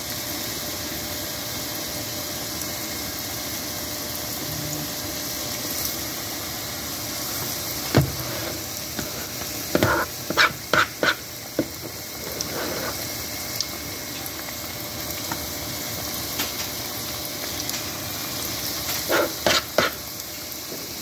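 Oliebollen dough balls deep-frying in a pot of hot oil, a steady sizzle and bubble. A few short clicks and knocks of a spoon come about eight seconds in, around ten to eleven seconds, and near the end.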